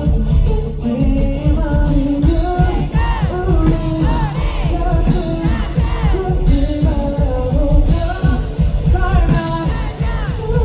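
A rock band playing live, with lead singing over drums, bass and guitars and a steady driving beat.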